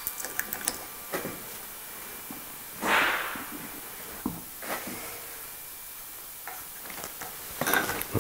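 PVA wood glue squeezed from a plastic squeeze bottle, with a short hissing splutter about three seconds in and a few small handling clicks.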